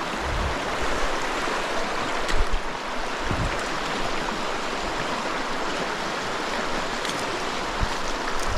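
Small rocky mountain stream running steadily over riffles, with a few low thumps now and then.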